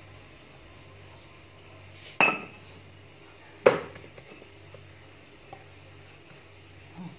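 Wooden rolling pin knocked down on the worktop twice, about a second and a half apart, the first with a short ringing clatter, and a softer knock near the end.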